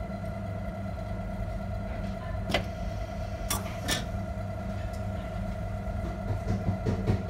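Automatic beer dispenser running with a steady machine hum as it pours beer into a glass, with a few sharp clicks a few seconds in as the glass holder tilts the glass upright. Irregular low bubbling bumps near the end as the foam head goes on.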